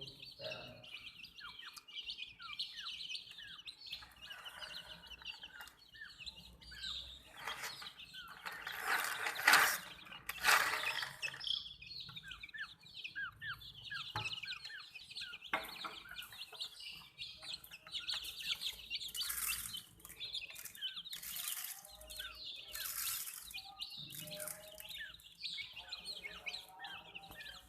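A group of baby chicks peeping: a continuous chorus of many short, high chirps. Louder noisy bursts come twice, about a third of the way in and again past the middle.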